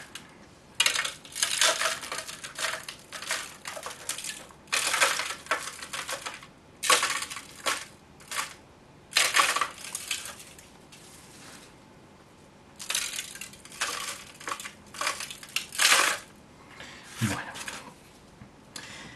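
Gritty potting mix, substrate cut with coarse building sand, being scooped by hand and sprinkled into a plastic seedling cell tray. It comes as repeated scratchy rustles of about a second each, with short quiet gaps between.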